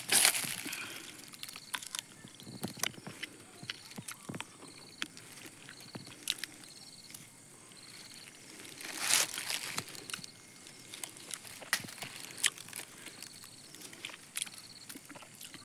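Dry leaves and twigs rustling and crackling as wild fruit stems are handled, with two louder crunches, one at the very start and one about nine seconds in. A faint high chirp repeats about twice a second in the background.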